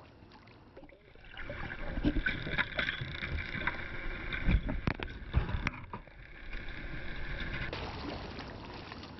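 Boat motor running steadily, with several sharp knocks about two to six seconds in.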